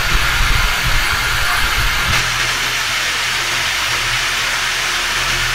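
High-speed rotary tool running with a sanding drum pressed against a rusted hand-drill handle, a steady hiss of abrasive grinding over the motor's hum. The grinding sound shifts abruptly about two seconds in.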